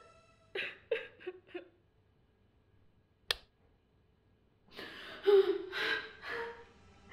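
A woman's short gasping sobs, then a single sharp click about three seconds in, then louder strained crying.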